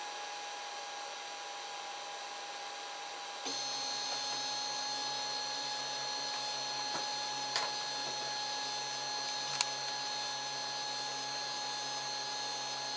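3D printer running idle with a steady high whine; about three and a half seconds in a lower hum comes in and it gets louder. A few faint clicks come later.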